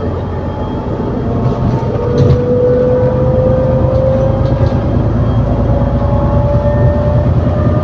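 ADL Enviro400 City double-decker bus with a Voith automatic gearbox accelerating, heard from on board: the engine runs under load and a drivetrain whine rises steadily in pitch from about two seconds in.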